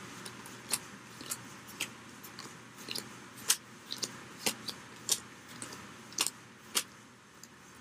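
Uno cards being dealt one at a time, each card giving a short crisp snap, about twice a second, a dozen in all.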